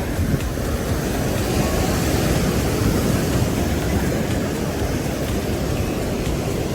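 Steady rushing beach ambience of surf and wind buffeting the microphone, strongest in the low end, with no distinct events.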